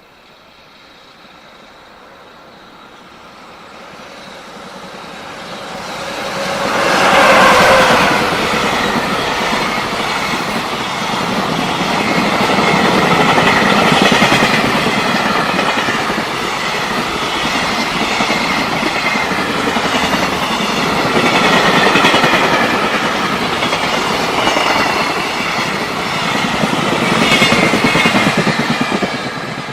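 Freight train passing: the approach builds up and the locomotive goes by about seven seconds in, followed by a long run of wagons clattering over the rail joints, rising and falling in loudness.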